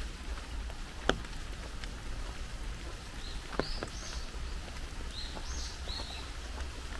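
Rain falling steadily, with a few sharp louder drops hitting, the loudest about a second in. Midway a bird gives a run of short high chirps.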